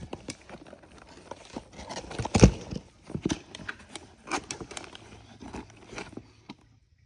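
Plastic packaging crinkling and rustling as a small turbo-kit part, a boost controller, is unwrapped by hand, with irregular clicks and a louder knock about two and a half seconds in.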